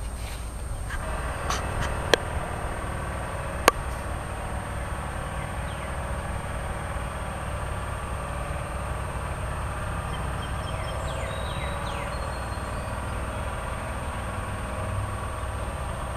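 Steady low outdoor rumble, broken by two sharp clicks about two and three and a half seconds in. A few faint, short, high falling peeps come in the second half.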